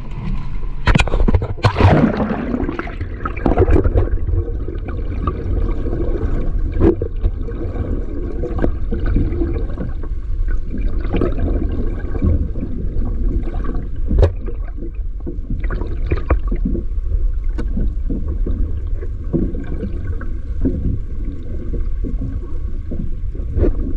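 Water splashing and sloshing around a small fishing boat, with scattered knocks and a faint steady hum under a constant low rumble.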